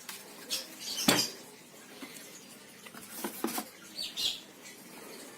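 A few scattered knocks and clicks from a full-face helmet and its packaging being handled, the loudest about a second in.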